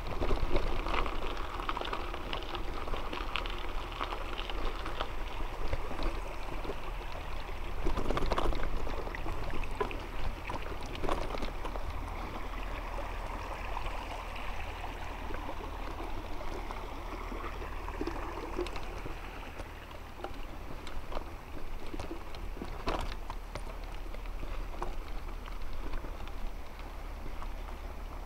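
Mountain bike rolling over gravel and grass: a steady rushing tyre noise with scattered rattles and knocks as the bike goes over bumps, the loudest about 8, 11 and 23 seconds in.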